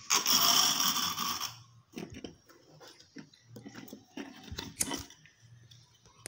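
Handling noise at a workbench: a loud rustling scrape for about a second and a half, then scattered light clicks and taps as a small aluminium heatsink and hand tools are picked up and moved, with one sharper click near the end.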